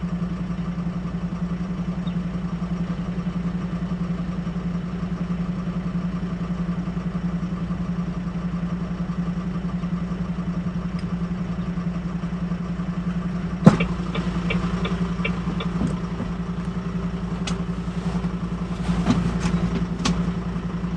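Light-truck camper's engine idling steadily. About two-thirds of the way through there is a sharp knock, followed by a handful of light clicks.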